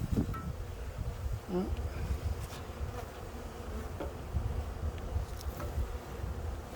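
Honeybees buzzing in a steady hum around a hive freshly stocked with a package of bees, with a couple of short swooping hums about a second and a half apart over a low rumble.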